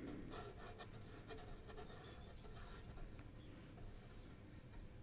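Faint scratching of a paintbrush's bristles stroking acrylic paint onto a board in short, irregular strokes.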